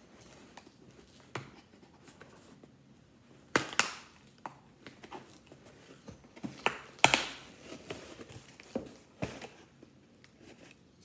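Cardboard shipping box being torn open by hand: irregular cracks and rips of packing tape and cardboard, the loudest about three and a half and seven seconds in.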